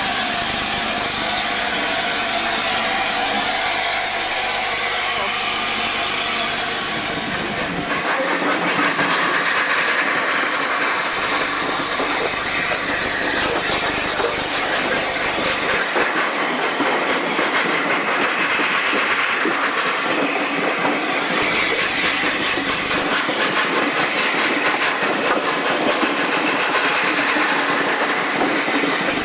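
Steam locomotive (LNER A4 No. 60007) heard close up with a steady hiss of steam. About eight seconds in, this gives way to a steam-hauled train running, heard from a carriage window: wheels clattering on the rails and steam hissing.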